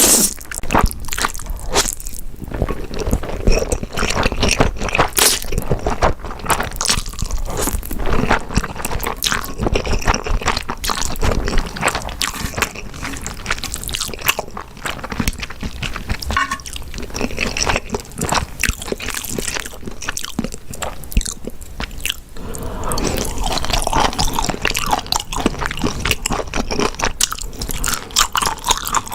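Close-miked chewing and biting of food: a person eating with a dense run of small crunches and clicks.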